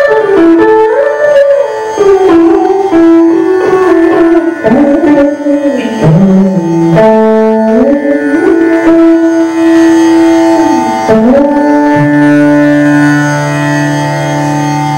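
Electric mandolin, amplified, playing a Carnatic melody of plucked notes with frequent slides and bends between pitches. About twelve seconds in the phrase settles onto a steady held low note that rings on.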